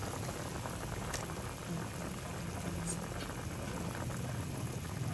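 A pot of water with pork pieces boiling hard, a steady bubbling.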